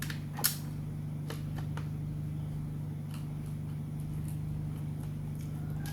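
Small sharp clicks and taps of a screwdriver and loose screws against a laptop's plastic case, the loudest about half a second in, over a steady low hum.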